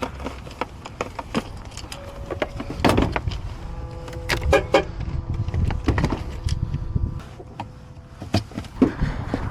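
Scattered clicks and knocks of keys and tools being handled inside a pickup truck's cab, over faint steady tones.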